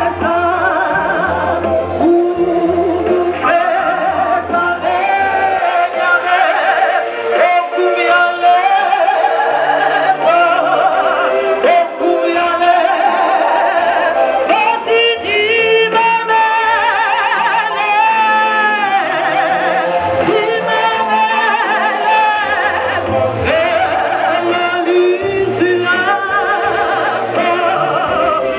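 A group of voices singing a hymn together, many voices with a strong wavering vibrato, over steady low bass notes.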